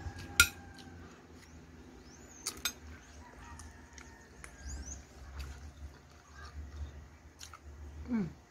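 Mukbang eating sounds: a metal spoon clinks sharply against a china plate, a couple of smaller clicks follow, then chewing of curry food eaten by hand, ending in a short falling "mm".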